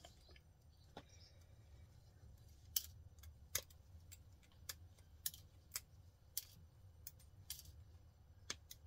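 Small sharp clicks, about ten at irregular intervals, as gold-plated pins are worked out of a computer cable connector, over a faint steady low hum.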